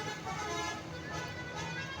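A bus's basuri musical horn playing a melody of short notes that step up and down in pitch, over the steady hum of the bus engine.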